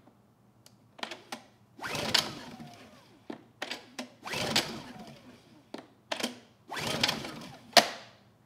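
Honda EU2000i inverter generator being pull-started with its recoil starter: three pulls, each preceded by a short tug, the engine whirring over briefly on each pull without firing. The engine fails to start.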